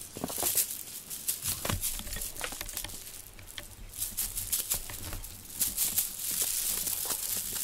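A cat playing with a ribbon cat-teaser: scratchy rustling and clicking as paws, claws and the ribbon rub on a fabric mat, with a steadier hissing rustle from about six seconds in.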